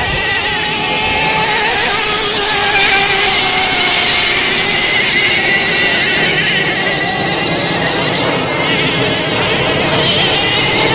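Radio-controlled racing hydroplanes running flat out: a loud, high-pitched engine whine whose pitch wavers up and down as the boats circle the course.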